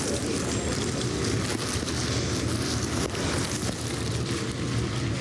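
Steady outdoor background noise, an even rushing hiss over a low rumble, with no single event standing out.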